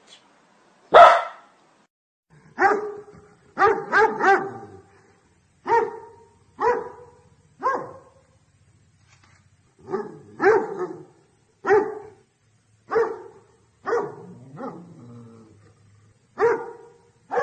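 A dog barking in single barks spaced about a second apart, with a quick run of three barks about four seconds in; the first bark, about a second in, is the loudest.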